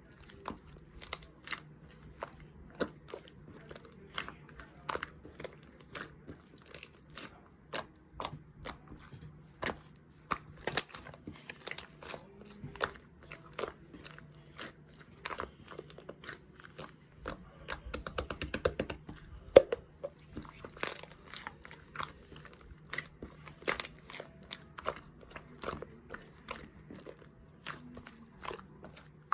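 Close-up handling of paper or plastic materials: a long run of sharp clicks and taps mixed with crinkling and tearing, with a quick rapid run of clicks about eighteen seconds in.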